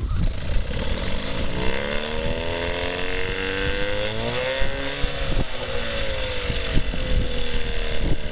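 Small Johnson outboard motor running just after being drill-started. Its speed climbs for a few seconds, peaks about halfway through, then eases a little and runs steadily, with a few light knocks.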